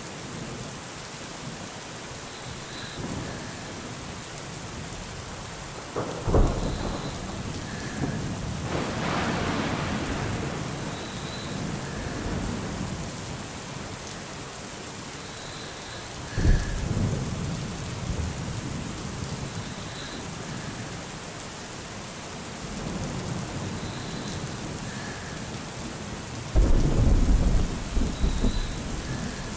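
Thunderstorm: steady rain with thunder rumbling in three sudden low crashes, about six seconds in, about sixteen seconds in, and near the end, the last one the loudest.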